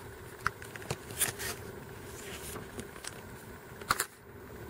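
Faint clicks and crackles of a plastic blister pack being handled, a few scattered ones with a closer pair about four seconds in, over a faint steady hum.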